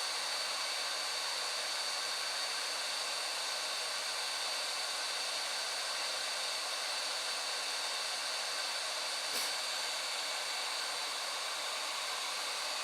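Hot-air rework station (8858) blowing a steady jet of hot air: an even rushing hiss with a thin high whine from its fan, held on a circuit board to melt the solder of a USB connector.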